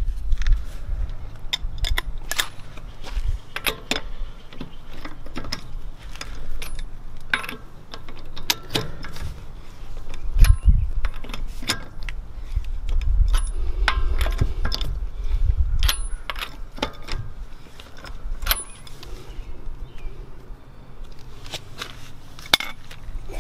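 Irregular metallic clinks and clicks of a socket and lug nuts being handled at a car wheel, some ringing briefly, with a low rumble at times.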